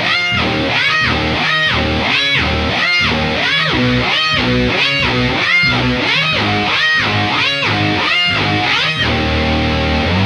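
Electric bass riff played through a Micro POG octave-up 'fake guitar' layer and a Boss PS-6 pitch shifter. The upper octave sweeps up and back down on each note, about one and a half times a second, while the bass note underneath stays at the same pitch.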